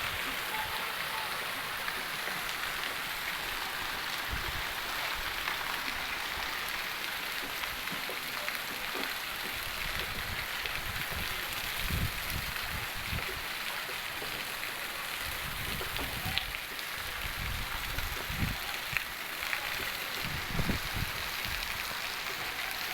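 Steady rain falling, a continuous even hiss of drops on surfaces, with a few brief low bumps in the second half.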